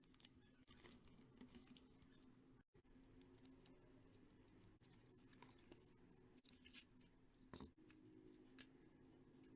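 Faint handling sounds: light clicks and scratches of photocards and their packaging being handled, with one sharper click about seven and a half seconds in, over a low steady hum.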